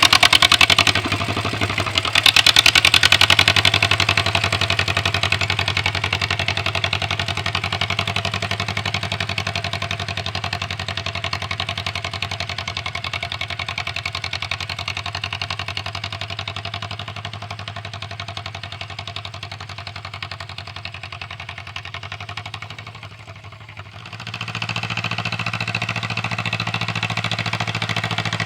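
1947 John Deere M tractor's two-cylinder engine running steadily. It is loudest in the first few seconds, and a little before the end it drops away briefly and then picks back up.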